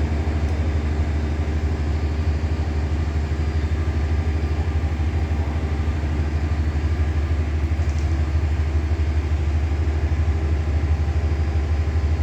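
An engine running steadily at idle: a low, even drone with a fast, regular throb.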